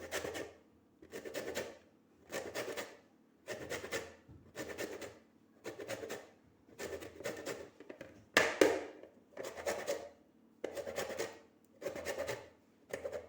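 Lemon being grated on a fine metal grater to take off the yellow zest: rhythmic rasping strokes, about one a second.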